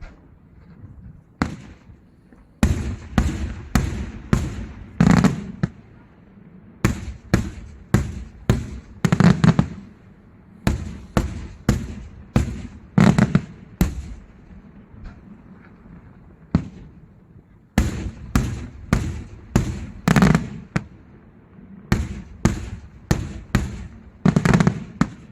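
Daytime fireworks display: a rapid run of sharp explosive bangs, about two a second, with brief lulls near the start, about ten seconds in, and around sixteen seconds in.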